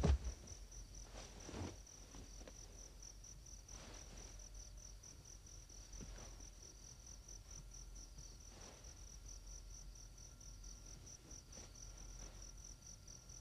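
Crickets chirping in a steady, high-pitched pulsing trill, with a few faint rustles in the first couple of seconds.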